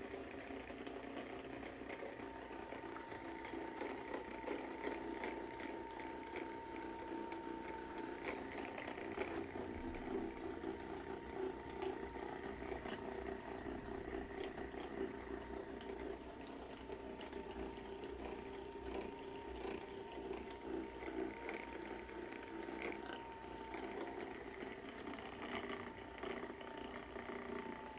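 Handheld percussion massage gun running continuously, a steady motor buzz with a thin whine over it, used to loosen up the muscles before a chiropractic adjustment.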